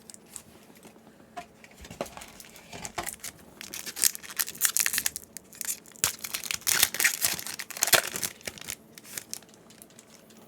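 Foil wrapper of a Yu-Gi-Oh Grand Creators booster pack being torn open and crinkled by hand, in irregular crackling bursts that are loudest around the middle.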